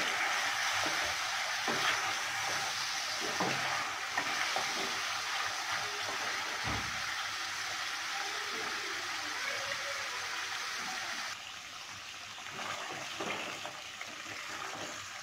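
Chicken with tomatoes and spices sizzling in hot oil in an aluminium karahi, stirred with a wooden spatula that scrapes and knocks against the pan now and then. The sizzle becomes quieter about eleven seconds in.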